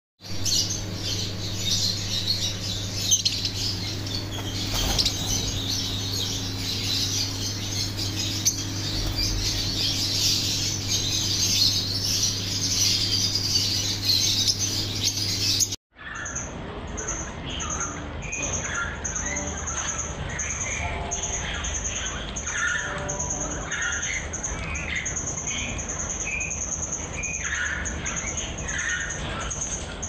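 Lovebirds chattering and squawking in a dense, shrill chorus over a steady low hum. About halfway through it changes to zebra finches giving many short calls, over a fast, even string of high peeps.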